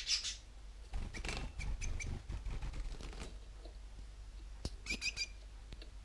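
Gouldian finches giving short, high chirping calls: a cluster right at the start and another about five seconds in. Between about one and three seconds there is a stretch of low rustling.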